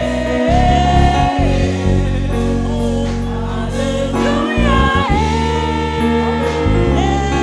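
Church choir and congregation singing a gospel praise song over a band with steady bass and keyboard.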